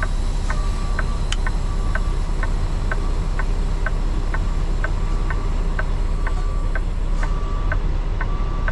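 Indicator flasher in a Peterbilt truck's cab ticking evenly about twice a second, over the steady low rumble of the truck's diesel engine idling.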